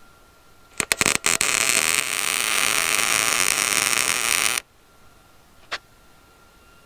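Wire-feed welder tacking a steel patch plate onto a car's frame rail: a few short stop-start strikes of the arc about a second in, then a steady arc for about two and a half seconds that cuts off suddenly. A single brief click near the end.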